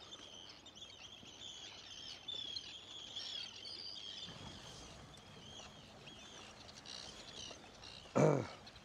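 A colony of Arctic terns calling continuously, many overlapping short, high chirping calls. One brief louder burst comes near the end.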